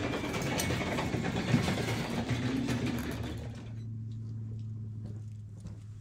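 Some handling clatter, then about three and a half seconds in a motor starts a steady low hum.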